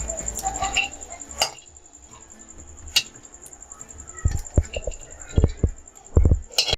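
Spatula or ladle knocking and scraping in a pan while dry-roasting spices, seeds and bran, about half a dozen irregular knocks, with a steady thin high tone throughout. The sound cuts off abruptly at the end.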